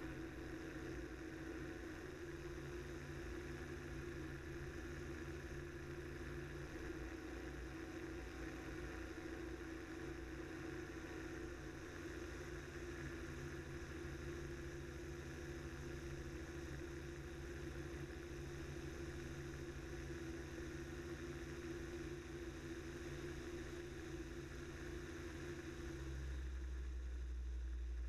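Aerolite 103 ultralight's two-stroke engine and propeller droning steadily in cruise flight. Near the end the sound shifts to a deeper, heavier hum.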